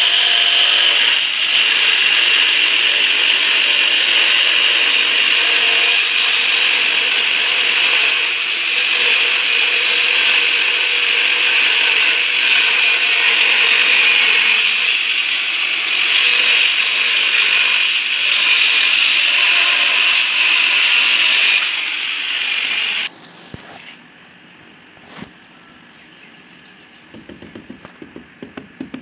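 Electric angle grinder with a cutting disc cutting through a ceramic tile, a loud, steady high-pitched whine that stops about 23 seconds in. Near the end, a hammer taps rapidly on a wall tile, setting it into place.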